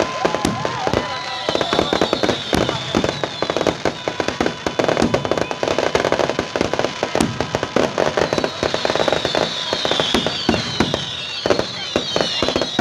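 New Year fireworks going off in a dense, continuous barrage of rapid bangs and crackles, with high wavering whistles from about a second in and again later.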